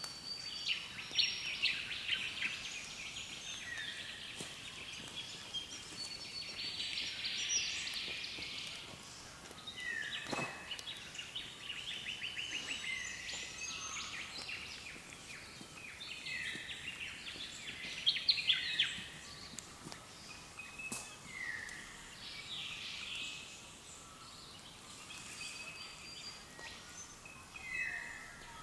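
Early-morning chorus of several wild birds calling over one another: dense chattering and trills, with short down-slurred whistles repeating every few seconds.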